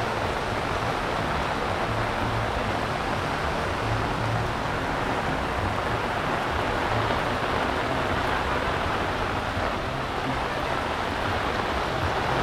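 Heavy storm rain pouring down, a steady, even hiss.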